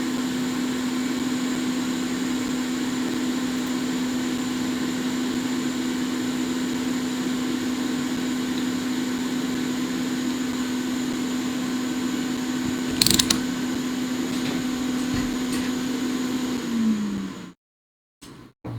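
Electric blower fan running with a steady hum and one low steady tone, with a brief clatter about two-thirds of the way in. Near the end the tone dips in pitch and the sound then cuts off abruptly.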